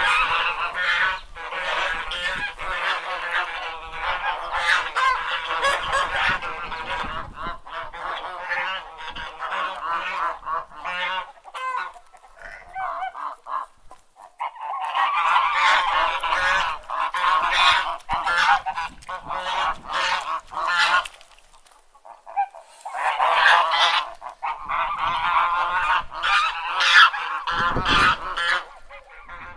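Domestic geese honking in rapid, overlapping runs of calls, in three long bouts separated by brief lulls about 12 and 22 seconds in.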